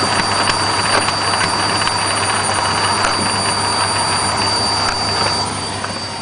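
Beko WMA642 washing machine running in its spin cycle: a steady mechanical whir with a high whine over it. The whine cuts out and the sound drops off about five and a half seconds in.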